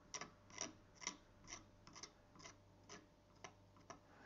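Metal palette knife scraping oil paint across a textured OSB board in short, faint strokes, about two a second.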